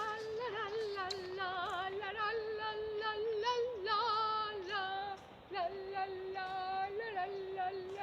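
A woman singing a wordless melody in held, wavering notes, with a brief break a little after five seconds in.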